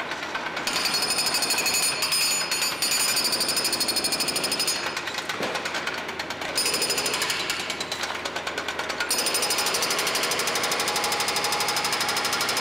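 Hydraulic breaker on a compact excavator hammering through a concrete floor: a rapid, steady train of blows that eases off a couple of times midway.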